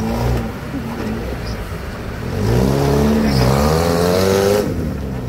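Suzuki Jimny engine revving under load as the 4x4 climbs a steep bank out of a rocky riverbed. About halfway through the revs get louder, dip in pitch and then climb again before easing off near the end.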